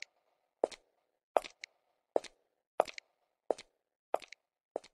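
Footsteps sound effect: slow, evenly spaced steps, about one every 0.7 seconds, growing fainter toward the end as the walker moves away.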